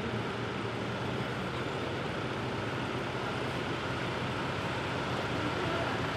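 School bus engine running, a steady, even sound without a break.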